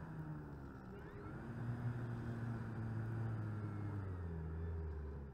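Motor and propeller of an RC Fw190 model plane in flight, heard from its onboard camera: a steady low drone with wind rush, swelling about a second and a half in and holding near one pitch.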